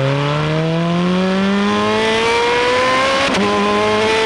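Ferrari 430 Scuderia's V8 accelerating hard, its note climbing steadily for about three seconds. A quick upshift about three seconds in drops the pitch, and it starts to climb again.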